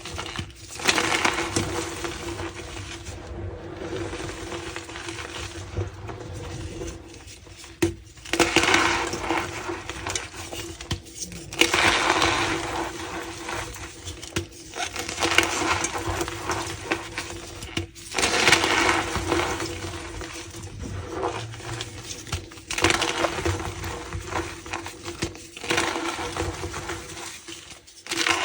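Tie-dyed gym chalk blocks being crushed and crumbled by hand, a squeaky crunching that comes in repeated bouts every few seconds.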